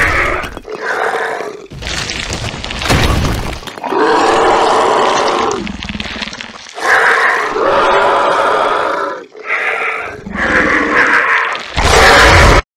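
Creature sound effects: a series of loud monster roars and growls, each about one to two seconds long, cutting off abruptly near the end.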